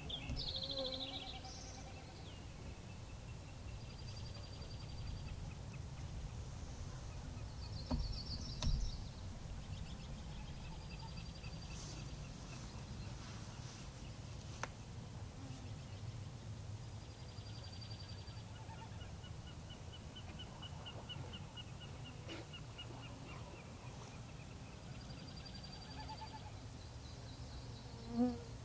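Wetland ambience: Canada geese give short honks near the start and again near the end, while high, rapid trills repeat every few seconds in between. Two low thumps come about eight seconds in, over a steady low rumble.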